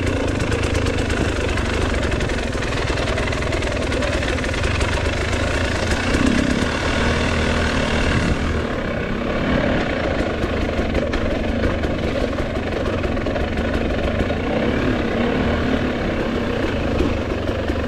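Enduro dirt bike engine running steadily while the bike is ridden down a narrow forest trail. The higher hiss over it thins out about eight seconds in.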